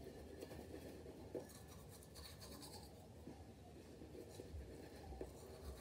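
Faint scratchy scrubbing of a manual toothbrush brushing teeth, with a few small clicks.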